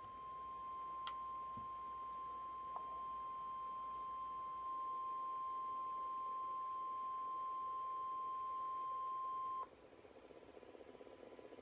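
NOAA Weather Radio warning alarm tone: a single steady tone held for about ten seconds, then cut off sharply. It signals that a warning message follows. A faint radio hiss remains after it.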